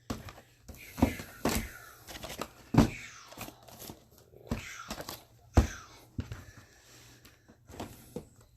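Sealed cardboard hobby boxes of trading cards being handled and set down on a table: a series of irregular knocks with rustling and squeaky rubbing of the shrink-wrapped boxes in between.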